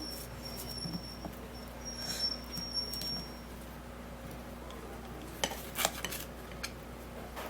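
Kitchen utensils lightly clicking and tapping against dishware, with a thin high steady tone through the first half and a quick cluster of sharper clicks near the end.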